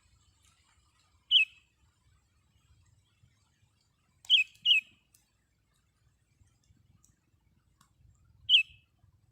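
Sooty-headed bulbul (kutilang) giving short, sharp calls that drop in pitch, four in all, two of them in quick succession about halfway through.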